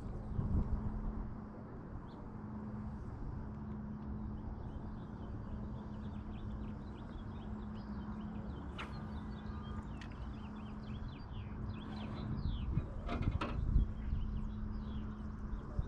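Small birds chirping over a steady low hum and rumble, with a few sharp knocks around thirteen seconds in.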